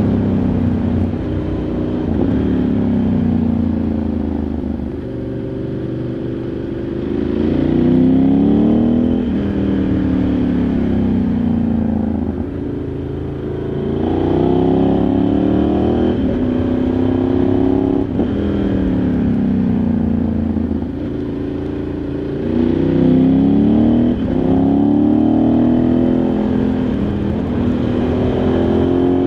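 Ducati Multistrada 1100S's air-cooled L-twin engine heard from onboard, accelerating hard and rolling off again several times, its pitch climbing and then falling with each pull through the gears.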